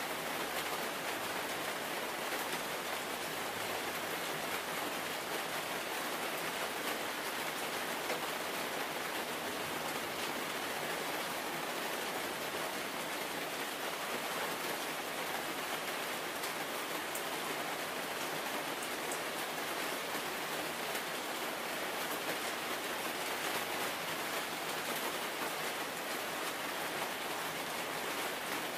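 Steady rain, an even hiss that does not change.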